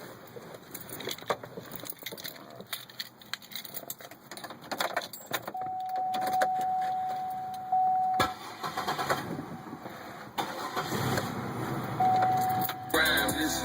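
Car keys jingling, then a steady electronic warning chime tone, then the car's engine being cranked with the starter, the sound growing louder near the end. The car has stopped running, and a vacuum leak is the suspected cause.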